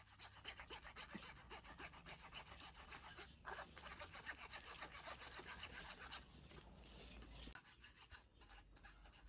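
Metal spoon scraping and rubbing against a fine wire-mesh strainer as a soft white mash is pressed through it into a bowl: a quick run of faint scraping strokes, thinning out near the end.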